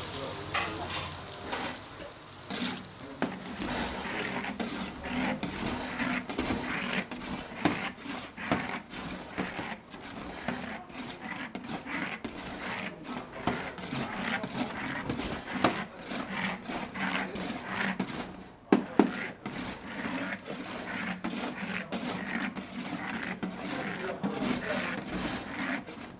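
Repeated hand-work strokes on a hard surface, rubbing and scraping with light knocks, a few a second and irregular, with a few sharper knocks in the second half.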